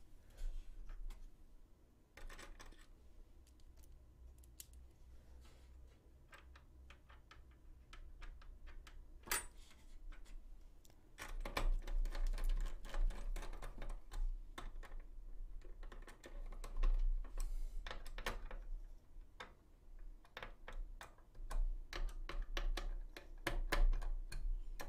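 Small clicks, taps and scrapes of AIO cooler mounting hardware being fitted and secured by hand around a CPU socket inside a PC case, with low bumps and rumble as the case is handled. The handling grows busier about halfway through.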